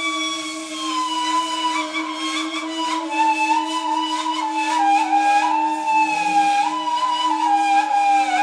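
Two neys, Turkish end-blown reed flutes, improvising together in Ottoman classical style: one holds a steady low drone while the other plays a melody above it, moving between notes with short glides.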